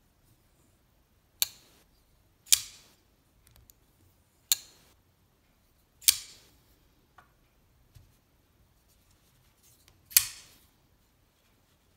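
Shirogorov Neon Lite flipper knife being flicked open and shut, the blade snapping into place with sharp metallic clicks, five loud ones a second or more apart with a few faint ticks between.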